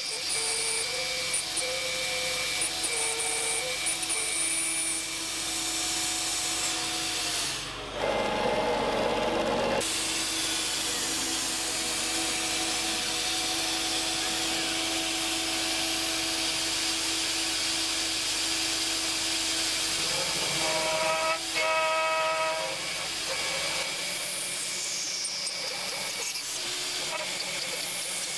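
Mafell FM 1000 router spindle running at about 10,000 rpm on a DIY CNC machine while a 6 mm solid-carbide drill plunges holes into aluminium plate, over a steady hiss. The sound changes briefly about a third of the way in, and a short squealing tone comes and goes about three quarters of the way through as the drill cuts.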